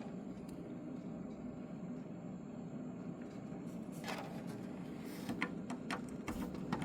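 Light clicks and taps of hands handling parts, several in the second half, over a steady low hum.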